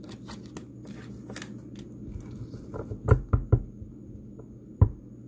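Tarot cards being handled and laid down on a tabletop: scattered soft clicks and rustles, with a few louder taps about three seconds in and one more near the end.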